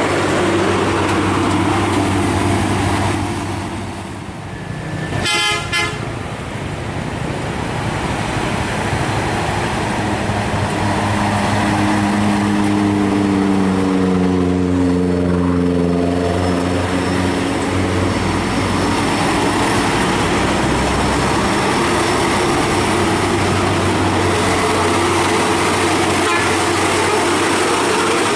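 Hino Ranger truck's diesel engine running steadily as it passes close by, with a short horn toot about five seconds in. Midway through, the engine note sinks gradually.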